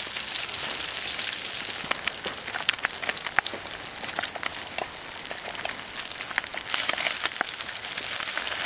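Spam frying over a campfire: a steady sizzle with many small pops and crackles throughout.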